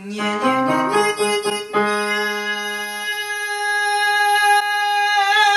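Digital piano chords, then a man singing one long high note held steady. The note opens into vibrato near the end. It is a vocal exercise for strengthening the top of the range while relaxing on the held note.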